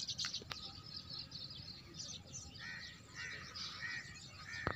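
Small birds chirping and calling, many short high chirps with several notes close together in the second half, over a steady low rumble.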